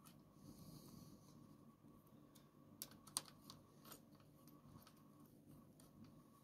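Near silence with a handful of faint metallic clicks, the clearest about three seconds in, from a hex key being worked in the axle pinch bolts of a motorcycle fork leg as they are snugged up.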